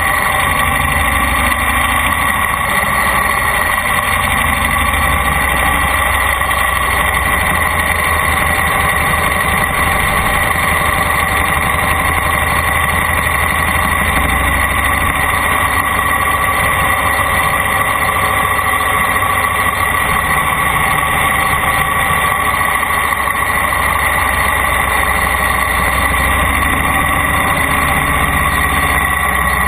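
Vehicle engine running steadily, with no change in pitch or level.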